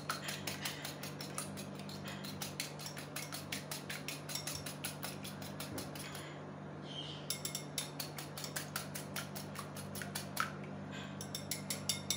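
Wire balloon whisk beating two raw eggs in a small bowl, its wires clicking against the bowl in a rapid, even rhythm, with a short pause a little past halfway. A steady low hum runs underneath.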